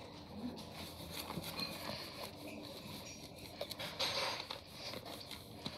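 Rustling, scraping and small clicks of makeup items being handled close to the microphone, with a louder scrape about four seconds in.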